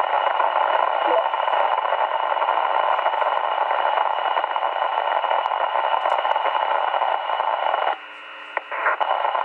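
Kenwood TR-7500 2 m FM transceiver's speaker playing a steady rush of noise from the repeater channel with no voice on it; it drops much quieter about eight seconds in, then briefly returns. The operator puts the noise down to bad filtering somewhere in the linked repeater system.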